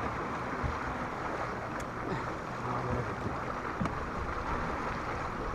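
Steady wind and water noise around a small fishing boat, with a few faint clicks.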